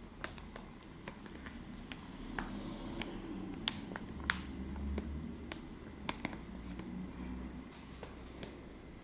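Fingertips tapping and rubbing close to the microphone: irregular sharp taps and soft clicks, the two loudest near the middle, over a low handling rumble.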